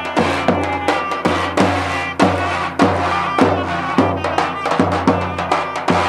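Live Turkish folk dance music: a davul bass drum beats a steady rhythm, a strong stroke a little under twice a second, while a wind instrument plays the melody above it.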